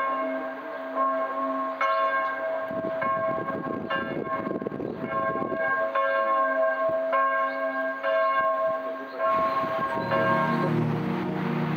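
Church bell tolling, about one stroke a second, each stroke's ringing running on into the next. About ten seconds in, soft background music comes in over it.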